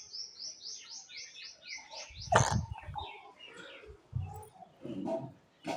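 A bird calling in a fast run of short, high, falling chirps, about five a second, for two seconds. A loud thump comes just after, followed by a few scattered knocks.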